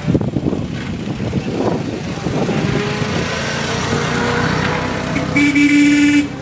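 Vintage 1920s car engines running as the cars pull away at low speed. About five and a half seconds in, a car horn sounds once, a loud blast of just under a second.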